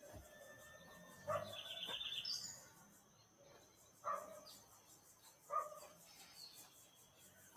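Rural outdoor ambience: a dog barks three times, spaced a few seconds apart, while birds call, including a quick high trill early in the barking.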